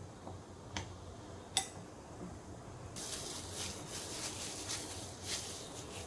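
A plastic spoon clicks twice against a glass bowl while stirring rice. Then disposable plastic gloves crinkle and rustle as the rice is pressed into balls by hand.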